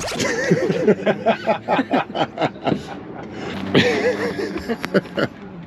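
People laughing and chuckling, in quick repeated bursts, with a few indistinct voices.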